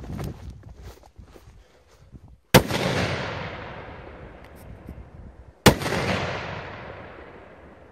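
Running footsteps through grass at first, then two loud firecracker bangs about three seconds apart from Funke Titanblitz 3 petards, each followed by a long fading tail.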